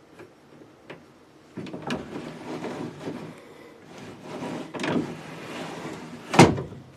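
The classic Mustang's quarter window glass sliding in its channel against new weather stripping, a rubbing, scraping sound that swells and fades over several seconds, with a short, louder squeak near the end.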